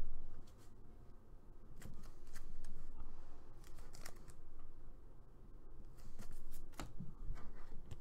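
Trading cards and a clear plastic card sleeve being handled: soft rustling and sliding, with a few sharp clicks and scrapes scattered through.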